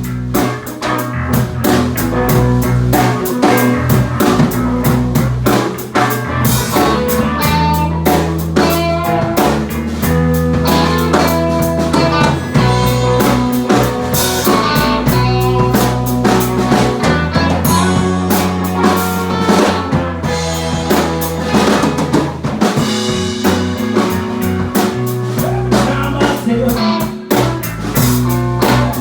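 Blues-rock band playing an instrumental passage: a drum kit with snare and rimshot hits keeps the beat under a bass line that steps between notes and electric guitar.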